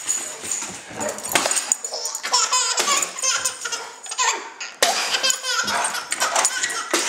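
Baby laughing in repeated bursts, with several sharp clicks and knocks among the laughter, the loudest about five seconds in.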